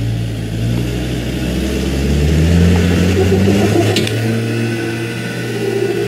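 A four-wheel drive's engine revving under load as it climbs a rock ledge. The revs rise over the first two to three seconds and then hold steady.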